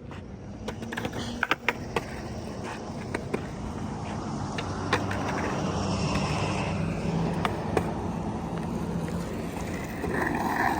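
Skateboard wheels rolling on wet pavement: a steady rumble that builds over the first few seconds and then holds, with a few sharp clacks near the start.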